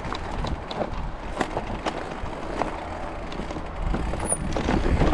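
Footsteps crunching and crackling over dry, fire-burned ground, irregular clicks and snaps, over a low rumble of wind on the microphone.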